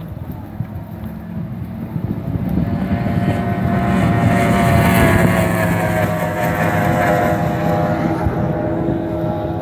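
Outboard-powered performance speedboat passing at full throttle. The engine grows louder to a peak about halfway through as it goes by, then its pitch drops slightly as it pulls away.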